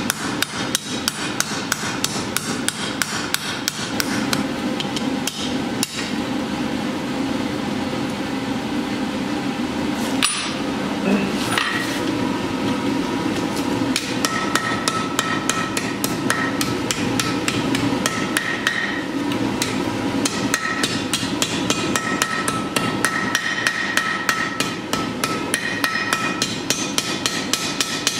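Hand hammer striking red-hot steel on an anvil in a quick steady rhythm of about four blows a second, as the flared end of the bar is forged into a candle cup over the anvil horn. In the second half a clear ringing tone from the anvil sounds with the blows.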